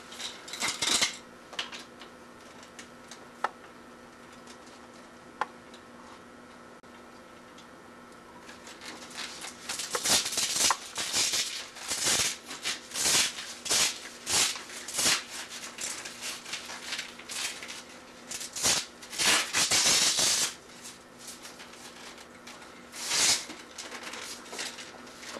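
A couple of faint clicks, then a long run of rasping, rustling strokes as a recumbent bicycle's mesh seat and its foam pad are handled and worked apart.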